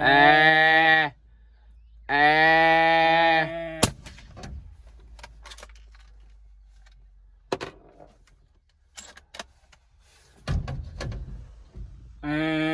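Two loud, long, steady held tones of about a second each, then a single rifle shot fired from inside a truck cab about four seconds in: a homekill shot that drops a cow. A few faint clicks and knocks follow, and another steady tone starts near the end.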